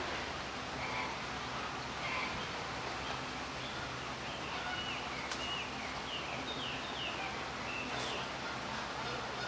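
Steady outdoor background noise, with a small bird giving a run of short, high chirps, several falling in pitch, in the second half, and two sharp clicks.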